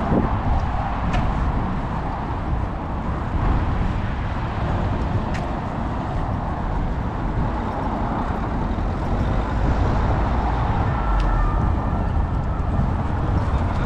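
Steady urban road traffic noise, a continuous low rumble of cars and other motor vehicles running.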